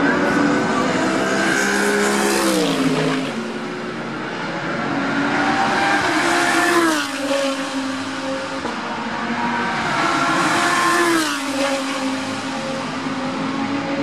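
GT3 race cars passing at full speed, three fly-bys a few seconds apart, each engine note dropping in pitch as the car goes by.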